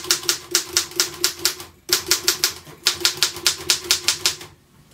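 Royal KMM manual typewriter being typed on: type bars striking the platen in a fast, even run of clacks, about six a second. There is a short break about two seconds in, and the typing stops just before the end.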